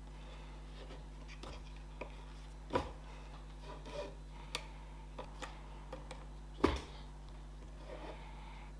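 Light handling sounds on a workbench: scattered small clicks, knocks and scrapes over a steady low hum, with two sharper knocks, the louder about two-thirds of the way through.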